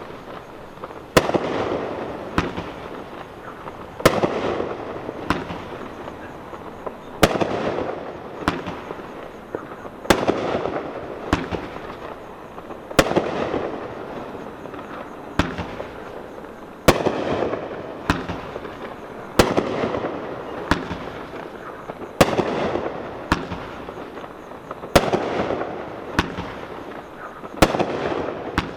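Miracle Fireworks 'Red, White & Boom' 40-shot aerial cake firing shot after shot. Sharp bangs come about every second or so, with the louder bursts each trailing off over a second or more.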